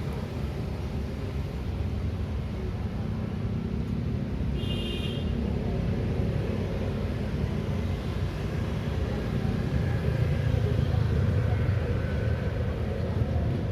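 City road traffic passing through a street intersection: a steady rumble of vehicle engines and tyres, swelling louder near the end. A brief high-pitched tone cuts through about four and a half seconds in.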